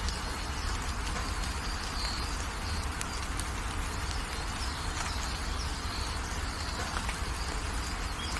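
Steady gentle rain shower with small birds chirping in short, repeated calls over it, and a low rumble underneath.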